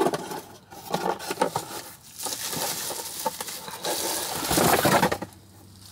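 Packing material and paper being pulled apart by hand, rustling and crinkling: scattered crackles at first, then a denser, louder stretch of crinkling from about two seconds in that stops shortly before the end, as a wrapped glass item is unpacked.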